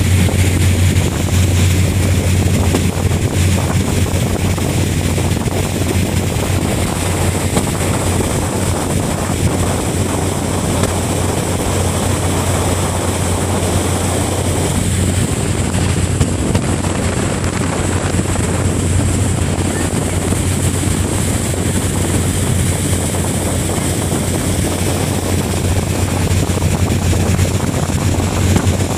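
Steady low drone of a passenger ferry's engines under way, mixed with wind noise on the microphone and the rush of water.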